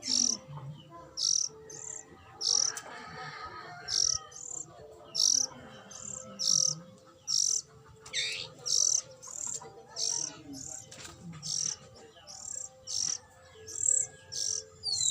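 Lovebirds chirping: a steady run of short, high chirps, a little more than one a second.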